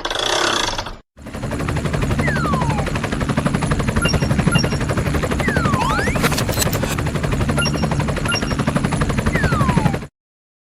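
Cartoon sound effects: a short noisy burst, then a dense, fast rattling clatter over a low hum, crossed three times by a falling whistle and once by a rising one, with a few faint pings.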